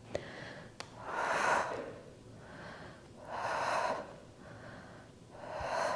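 A woman breathing hard with exertion during a resistance exercise: three heavy breaths about two seconds apart, with two faint clicks in the first second.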